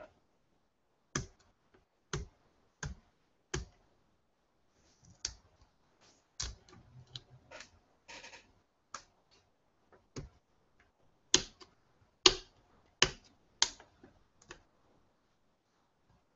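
Hands handling a new laptop still in its protective plastic film: irregular sharp clicks and taps of fingers and nails on the lid, with a brief crinkle of the film about eight seconds in.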